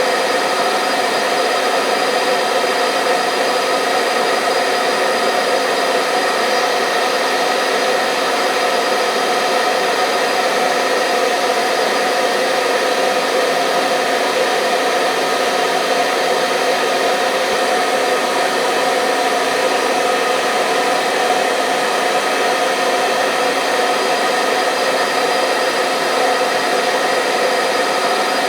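Hair dryer running steadily on one setting: a constant rushing blow of air with a faint motor hum and whine. It is a continuous white-noise-style sound for soothing babies to sleep.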